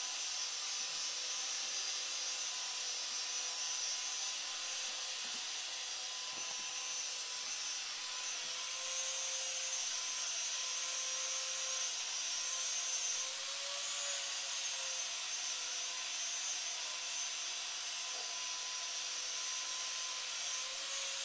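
Steady high hiss with a faint thin whine underneath.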